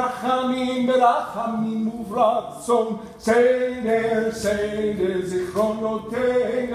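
A cantor (chazzan) singing solo and unaccompanied, one male voice chanting a liturgical melody with long held notes that glide from one to the next.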